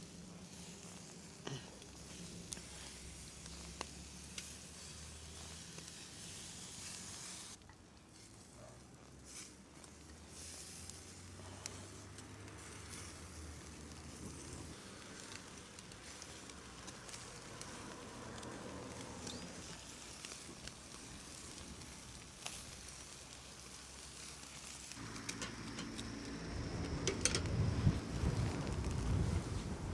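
Food frying and sizzling in a pan over a fire, with scattered sharp clicks. The sizzle gets louder and fuller over the last few seconds.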